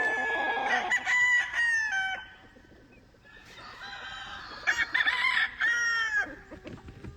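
Gamefowl roosters crowing: one crow carries on for the first two seconds, and after a short lull another comes about two-thirds of the way through.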